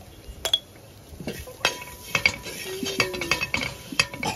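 Steel spoon scraping and clinking against the side and bottom of a large aluminium pot while stirring frying onions and spices. There is one click about half a second in, then quick, repeated strokes from about a second and a half in.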